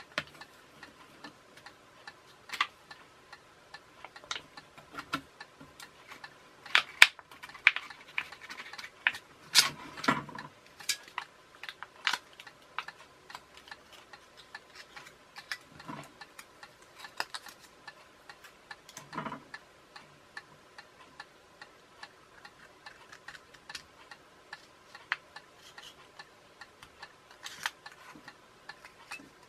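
Scissors snipping thin drinks-can aluminium, with irregular sharp clicks and crinkles as the metal is cut and handled, densest about seven to ten seconds in. A few duller knocks as things are set down on the bench.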